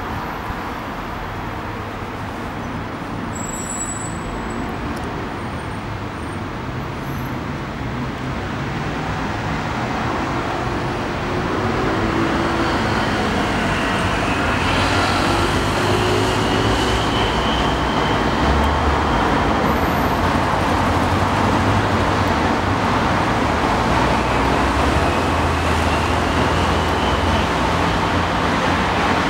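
Steady road traffic noise from cars passing close by, getting louder about eleven seconds in.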